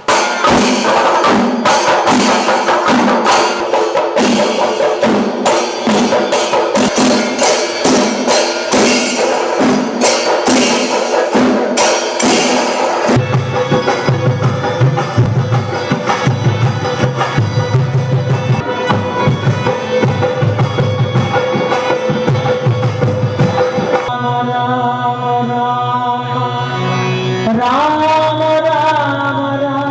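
Chenda drums beating fast and densely in a temple festival ensemble. About halfway through, the beating settles into steadier low strokes under a held tone, and in the last few seconds a pitched melody with bending notes comes in over the drums.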